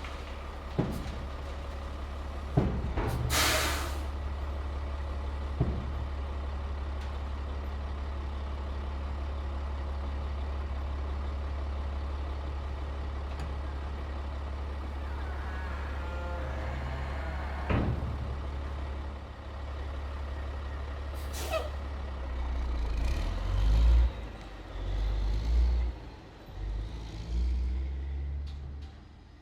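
Heavy diesel truck idling with a steady low rumble, a loud air-brake hiss about three seconds in and a few sharp knocks. From about 22 seconds the engine rises and falls unevenly in a series of surges, then fades near the end.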